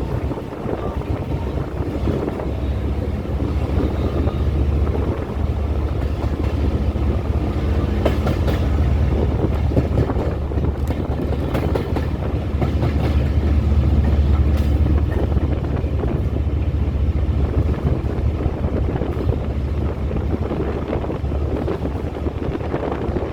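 Steady low rumble of a moving train, with faint wheel clicks and wind on the microphone.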